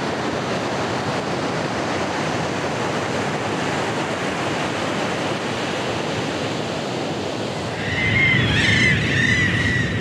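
Ocean surf washing steadily on a beach. About eight seconds in, the surf grows louder and a run of repeated high, arching bird calls begins.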